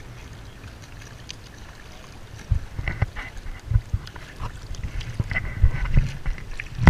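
Wind rumbling on the microphone over water lapping at a rock ledge; from about two and a half seconds in, a run of knocks and bumps joins it.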